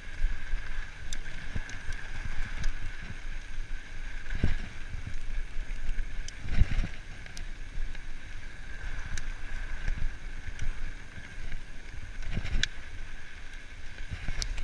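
Mountain bike rolling fast down a dirt trail: steady rushing of tyres on dirt and wind, with small rattles and clicks from the bike and three heavier thumps as it hits bumps.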